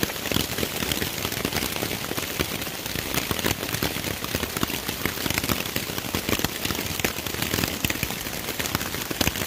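Rain falling on a tarp overhead, heard from underneath it: a steady, dense patter of many small drops hitting the fabric.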